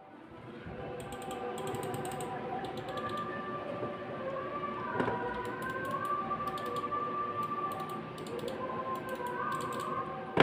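Zebronics Zeb-Transformer gaming mouse buttons clicking in short bursts of several quick clicks, starting about a second in. Faint background music plays underneath.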